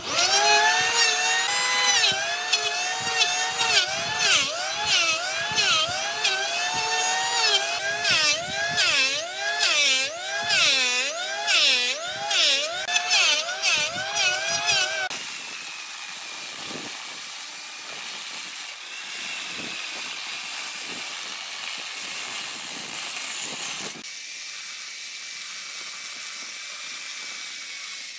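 Electric power tool working wood, its whine dipping in pitch again and again, with the dips coming faster from about 8 seconds in. At about 15 seconds it turns quieter, to a steady, higher whine.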